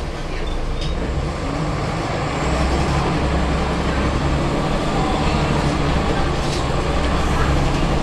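Scania L94UB city bus heard from inside the cabin: the engine and drivetrain run with a steady low drone that grows louder about two and a half seconds in as the bus pulls away and gathers speed, with a few brief rattles.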